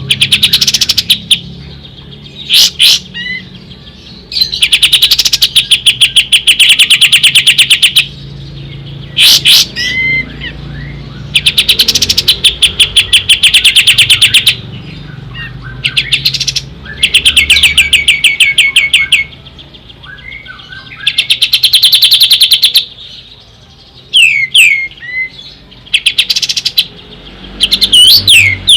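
Kapas tembak (pied triller) singing: rapid, evenly pulsed trills of two to three seconds each, repeated every few seconds, with short sweeping whistled notes between them.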